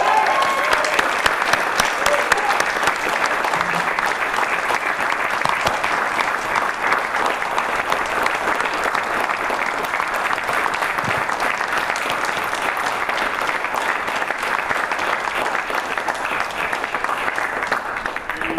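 Audience applauding: dense, steady clapping that starts all at once and dies away at the very end, with a voice or two calling out in the first couple of seconds.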